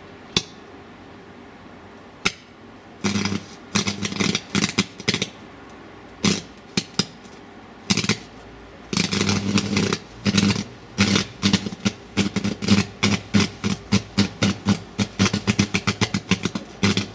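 Arc welder's electrode striking on a circuit board: a couple of sharp snaps, then repeated bursts of crackling, buzzing arc. Near the end it comes as a fast run of short sputtering strikes, several a second.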